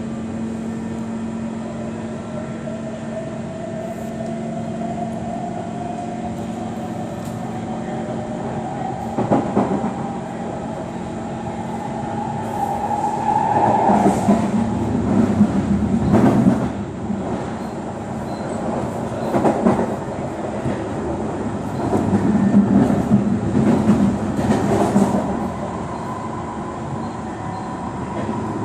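Kawasaki C151 MRT train heard from inside the carriage: the traction motor whine climbs steadily in pitch as the train gathers speed. In the second half, loud bursts of wheel-on-rail rumble and clatter come several times, and the whine then holds a steady high pitch.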